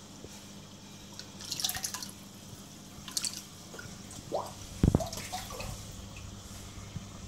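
Water splashing at an aquarium's surface in several short bursts as large predatory fish strike at food dropped in, with a sharp knock about five seconds in, over a steady low hum.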